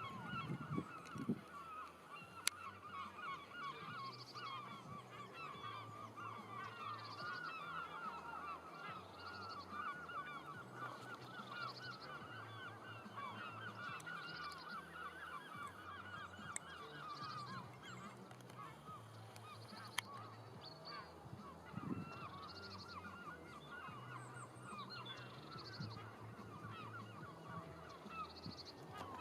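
A distant flock of birds calling continuously in a dense chorus, with a short high call repeating about every two and a half seconds.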